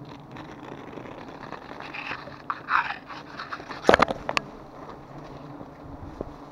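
A knife cutting and scraping through a wild giant honeybee comb, the wax crackling and crunching, then a cluster of sharp knocks about four seconds in.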